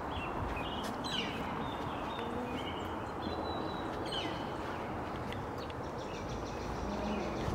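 Outdoor ambience with small birds chirping now and then over a steady background noise.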